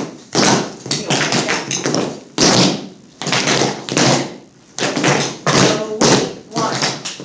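Metal taps on tap shoes striking a hard dance floor in quick clusters of taps. They come in short rhythmic phrases about a second apart, with brief pauses between, as the steps of a tap routine are danced.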